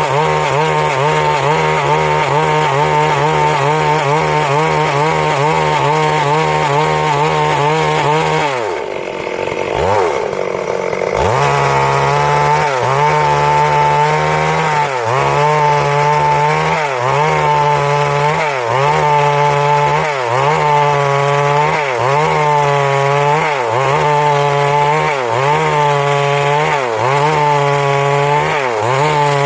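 Stihl MS 382 two-stroke chainsaw running at high revs, cutting wood. About eight seconds in the engine speed drops away for a couple of seconds. It then revs back up, its pitch dipping and recovering in a steady rhythm about every second and a half.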